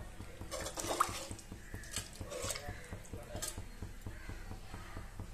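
Chicken gravy with water coming to the boil in an open aluminium pressure cooker: bubbles pop and spatter at irregular moments over a low, steady hum.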